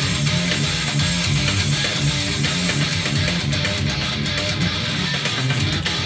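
LUXARS S-G62 electric guitar played with a pick, a steady run of fast picked notes.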